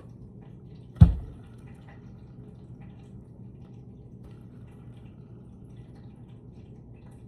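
One loud thump about a second in, then faint scattered small ticks from a Dr. Fish Salt Tiger spinning reel being handled, its handle turned.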